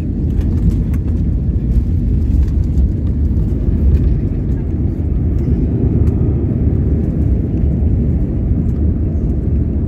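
Steady low rumble inside a jet airliner's cabin as it rolls along the runway after landing: engine noise and the landing gear running over the pavement.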